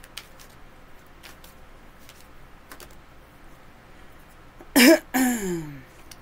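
A person coughs twice in quick succession about five seconds in, the second cough trailing off as the voice falls in pitch.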